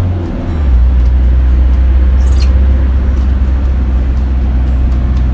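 Car engine and road noise heard from inside the cabin: a steady low drone that drops in pitch about half a second in and then holds, over tyre hiss on the wet road.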